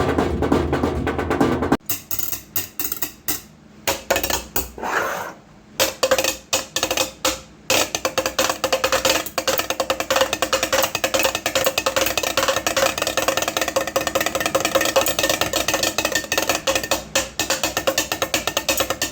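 Improvised drumming on a hard household object: dense tapping, then slower scattered knocks from about two seconds in, then a fast, steady run of taps from about eight seconds in.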